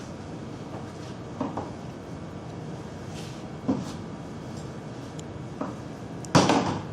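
Metal clamps and a skate-sharpening jig being handled on a table: a few light knocks, then a louder clatter near the end.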